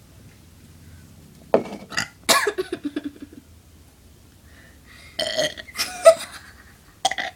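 A person burping on purpose: a long, drawn-out burp about two seconds in, then shorter burps about five and six seconds in and a brief one near the end.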